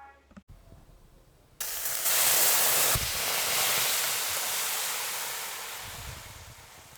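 A blended liquid curry mixture hitting a hot oiled pan and sizzling: the hiss starts suddenly about a second and a half in, then slowly dies away over the next few seconds.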